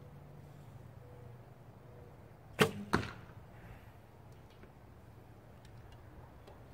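Recurve bow shot: the string snaps on release, and about a third of a second later there is a second sharp smack as the arrow strikes the target downrange.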